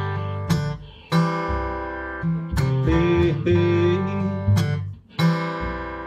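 Acoustic guitar playing a slow blues instrumental passage between sung lines: strummed chords with sharp attacks every second or two, and a held, wavering note about three seconds in.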